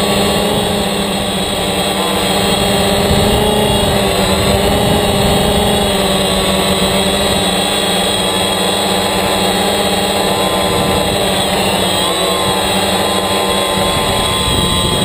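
DJI Phantom quadcopter's electric motors and propellers running, picked up by the camera mounted on the drone: a steady, loud multi-tone whine and buzz, with a slight shift in pitch about three quarters of the way through.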